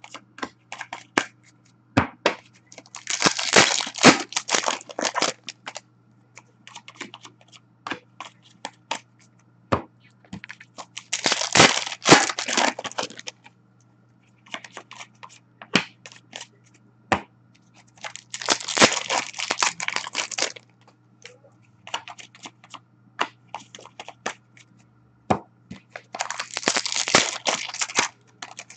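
Foil wrappers of hockey card packs being torn open and crinkled in four bursts of a couple of seconds each, with sharp clicks and flicks of cards being handled in between.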